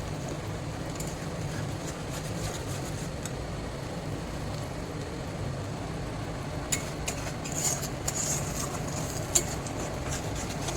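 Stovetop cooking in a pan: a steady low rumble, with a few sharp clicks of a utensil against the pan in the second half.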